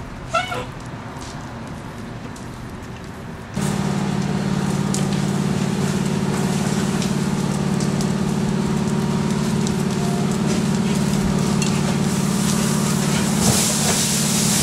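A truck's engine running in a loud, steady drone that cuts in suddenly about three and a half seconds in; a hiss joins it near the end.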